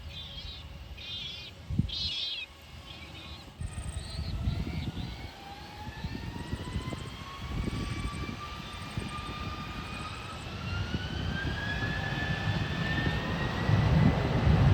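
Jet airliner engines, a JetBlue Airbus A320-family jet: a whine rises steadily in pitch from about four seconds in, while a low rumble builds louder toward the end. Birds call briefly at the start.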